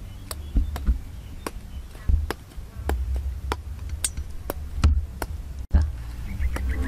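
Large knife chopping a green plant stalk on the ground: about a dozen sharp, irregular knocks, roughly two a second, over a low rumble. Music comes in near the end.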